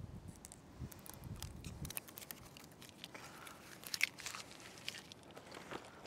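Release liner being peeled off the mastic tape on a metal pipe boot's flange: a run of faint crackling and small tearing sounds, sharpest about four seconds in.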